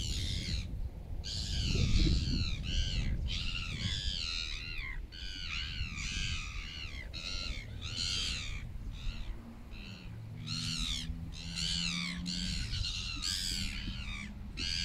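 Gulls calling over and over, a series of harsh, arched cries about one or two a second, over a low rumbling noise that is loudest about two seconds in. A low steady hum joins in for the last few seconds.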